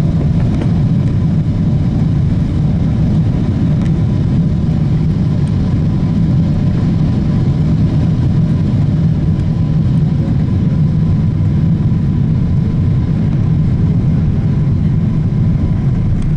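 Steady low rumble in the cabin of a Boeing 777-200ER as it rolls out along the runway after touchdown: engine and wheel noise while the airliner slows, with a faint steady high whine.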